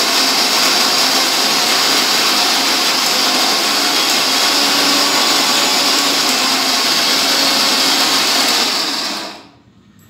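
Electric mixer grinder with a steel jar running steadily, grinding dried mahua flowers with roasted cashews, almonds and sesame seeds. It is switched off about nine seconds in and winds down quickly.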